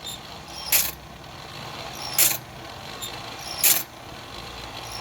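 Homemade band saw blade sharpener running: a steady motor hum, broken three times by a short, sharp grind about every second and a half as the grinding wheel dresses one tooth after another.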